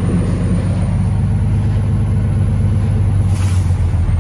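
Truck engine running steadily, heard from inside the cab as a low, even drone. A brief rush of noise comes about three and a half seconds in.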